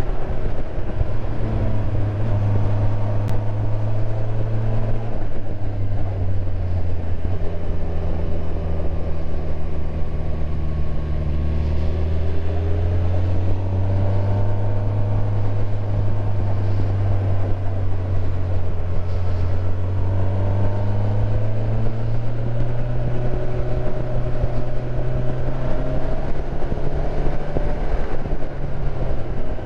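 Motorcycle engine running under way, heard from the rider's seat, its pitch dropping about five seconds in and slowly climbing again later as the throttle and road speed change. Steady wind and road noise run underneath.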